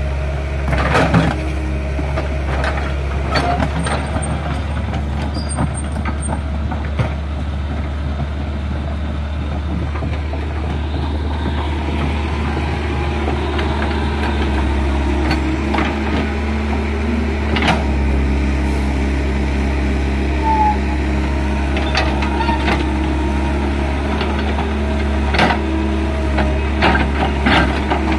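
Hydraulic excavator's diesel engine running steadily under digging load, with occasional sharp knocks and cracks as the bucket tears into a bamboo clump's roots and soil.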